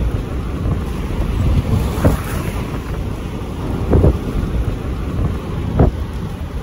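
Strong wind blowing across the microphone: a steady low rush, with harder gusts hitting it about every two seconds.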